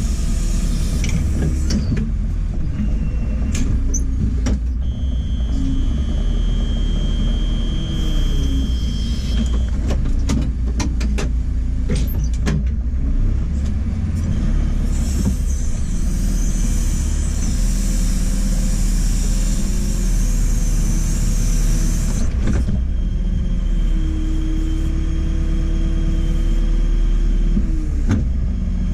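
JCB 4CX backhoe loader's diesel engine running steadily with a deep rumble, with hydraulic whines that come and go and glide in pitch as the arm works. A scattering of clicks and knocks, and a hiss for several seconds in the middle.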